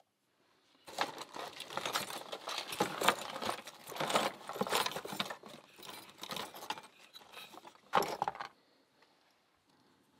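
Small metal pieces jangling and clinking in a dense, irregular run for about seven seconds, ending with a sharp louder clink near the end, like lockpicking tools or keys being handled.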